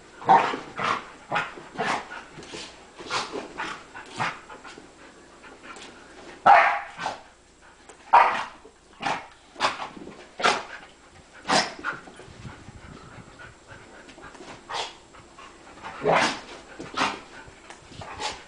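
Golden retrievers playing, giving a string of short, sharp play sneezes and barks at uneven intervals, the loudest a few seconds apart.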